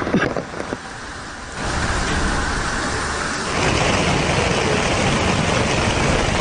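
Cars driving through a flooded road in the rain: a steady wash of tyres splashing through standing water with engine noise. It is quieter for the first second and a half and louder from about three and a half seconds in.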